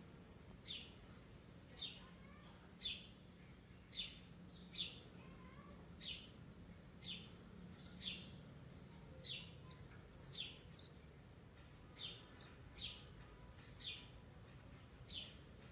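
A bird repeating one short, high chirp that falls in pitch, about once a second, some fifteen times.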